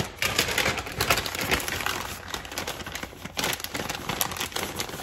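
Plastic bag of shredded cheese crinkling as it is handled and opened, a dense run of crackles that dies down near the end.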